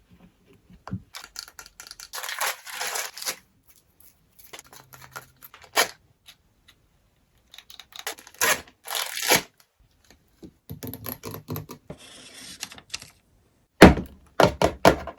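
Doll packaging being torn open and handled: intermittent tearing and rustling, ending in a quick run of sharp snaps and clicks.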